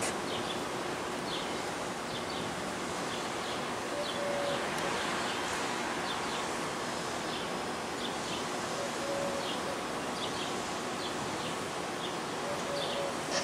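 Small birds chirping in short, high, repeated calls, a chirp every second or so, over a steady outdoor background hiss.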